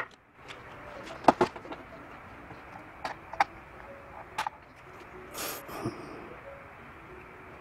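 Clicks and knocks of gloved hands handling cables and parts inside an open desktop PC case: a sharp click about a second in is the loudest, a few lighter clicks follow, and there is a short rustle about five and a half seconds in.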